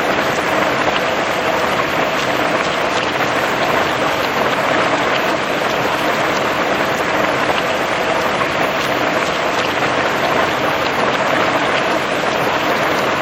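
Steady rain falling and pattering on surfaces, with scattered individual drops ticking through the even hiss.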